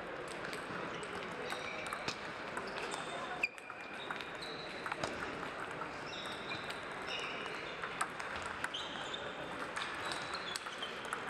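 Table tennis balls clicking and pinging off tables and bats at several tables at once, in an irregular patter over a steady murmur of voices in a large hall.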